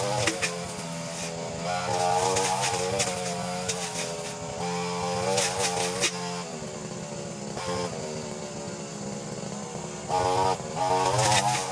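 Brushcutter engine running, its pitch rising and falling as the throttle is worked, and louder near the end.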